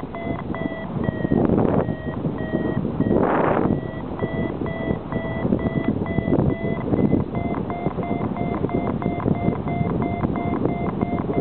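Paragliding variometer beeping rapidly, about three short beeps a second, the audio signal that the glider is climbing in lift. Wind rushes on the microphone throughout, with a louder gust about three seconds in.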